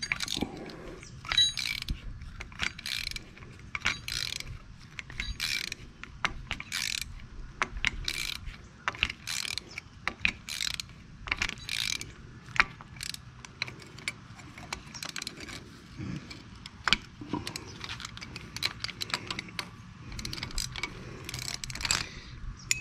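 Socket ratchet clicking in repeated strokes, about one or two clicks a second, some in quick runs, as a very tight, stubborn nut is worked loose on the truck's air-suspension leveling valve linkage.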